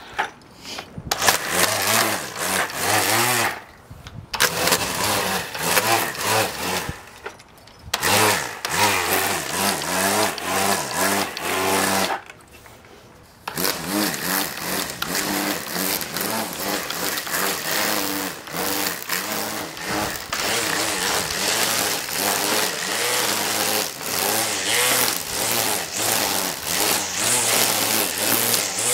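Cordless string trimmer running and its line cutting grass, with a motor whine whose pitch wavers as it bites into the growth. The motor stops and restarts about four times, the longest pause about a third of the way in.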